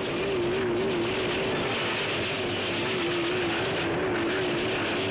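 Cartoon sound effect of a giant robot flying in to land: a steady rushing roar with a whining tone over it that warbles up and down about three times a second.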